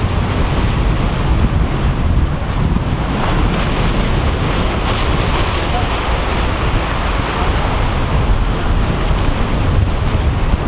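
Sea surf washing and breaking over the rocks of a jetty, under heavy wind buffeting the microphone with a steady low rumble.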